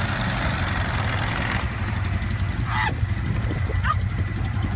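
Utility vehicle engine running hard with its wheels spinning in deep mud, a spray of mud hissing for the first second and a half. Two short shouts partway through.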